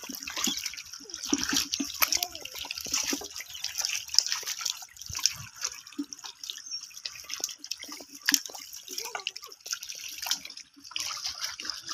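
Footsteps squelching and splashing through shallow water over soft mud, with irregular wet slaps and drips.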